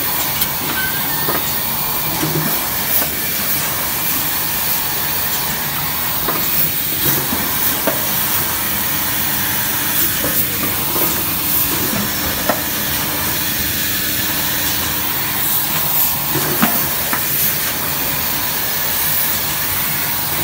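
Dry offset round bucket printing machine running: a steady hiss with irregular clicks and clacks as plastic buckets are fed, printed and carried along the conveyor.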